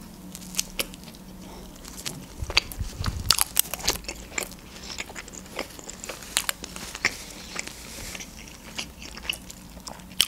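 A person biting and chewing a tombik, doner meat in a bread bun: crunching of the bread and many sharp, wet mouth clicks, busiest about two to four seconds in.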